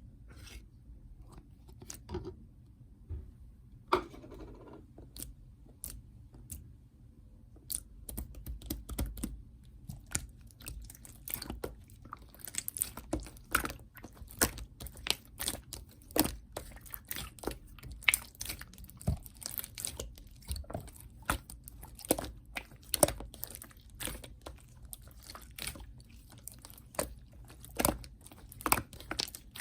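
Hands squeezing and poking slime, making sticky clicks and pops. A few come scattered at first, then a dense run of them starts about eight seconds in.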